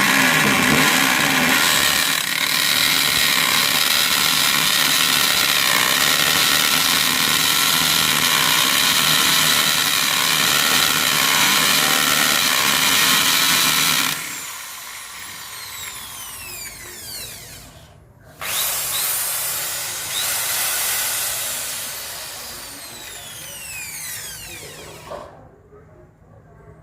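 Makita HB1630 hammer drill running at full speed under load, boring a hole, for about fourteen seconds; then the trigger is let go and the motor's whine falls as it spins down. About four seconds later it is run up again briefly and again winds down with a falling whine.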